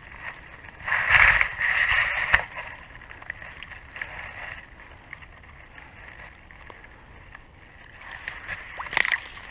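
Water splashing and sloshing in shallow water as a large released zander pulls away, one loud burst lasting about a second and a half starting a second in, then faint water hiss, with a shorter splash near the end.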